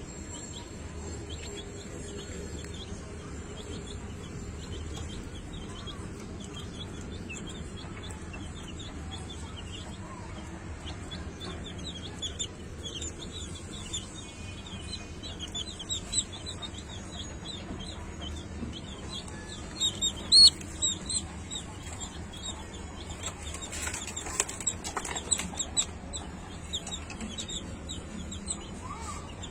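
Chickens clucking and peeping, with many short high chirps throughout. A few louder, sharper notes come about two-thirds of the way in.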